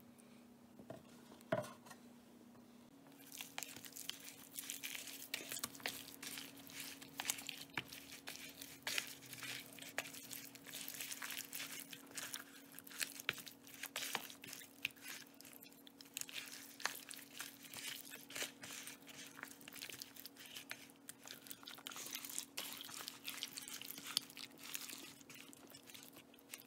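Hands squishing and kneading raw chicken pieces through a wet yogurt-and-spice marinade in a plastic bowl. It is a soft, irregular crackly squelching that starts about three seconds in and keeps going almost to the end, over a faint steady hum.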